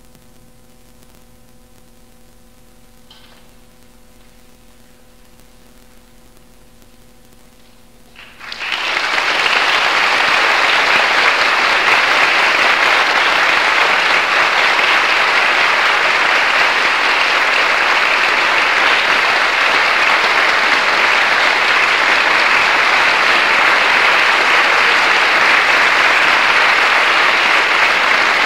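A faint held final chord of the orchestra and choir lingers, then a concert audience bursts into applause about eight seconds in and keeps clapping steadily.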